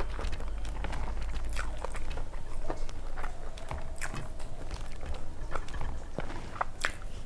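Close-up eating sounds: chewing and mouth clicks of someone eating a meal of rice, dal and fried vegetables, with many short, irregular ticks.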